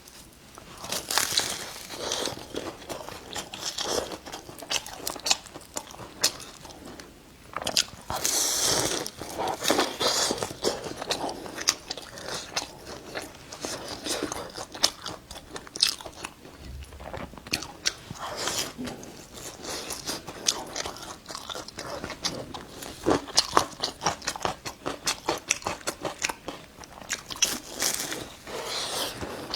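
Close-miked biting and chewing of a fresh-meat mooncake: its flaky pastry crust crunches and crackles in irregular clusters of crisp clicks, with chewing in between.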